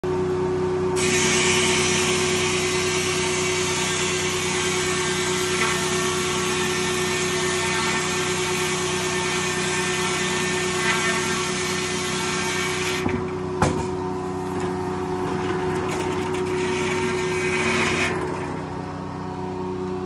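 Antique circular sawmill ripping a pine 2x12: the blade's loud hissing cut over the steady hum of the running mill, starting about a second in and lasting about twelve seconds. The cut ends with a sharp clunk, and the mill keeps running with its steady hum.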